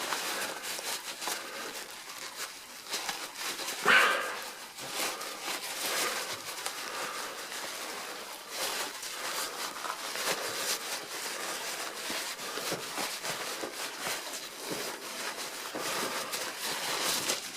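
Small metal clicks and rattles as the gummed-up detent levers of an Addo Multo Model 3 mechanical calculator are twisted back and forth on their shaft, stuck fast with old hardened lubricant. A short, loud whine-like cry about four seconds in is the loudest sound.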